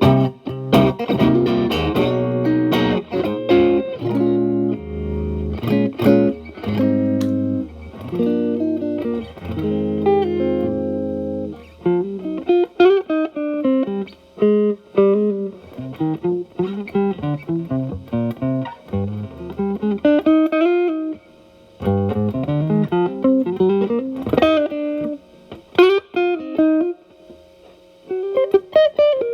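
Telecaster electric guitar played through an E.W.S. Brute Drive distortion pedal at high gain, about 10 to 11, into a Marshall Valvestate amp's clean channel. Distorted chords ring for the first dozen seconds, then it moves to single-note lead lines with string bends.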